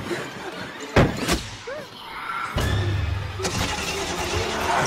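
Car door slammed shut: two heavy thuds close together about a second in. From about halfway a steady low rumbling noise follows.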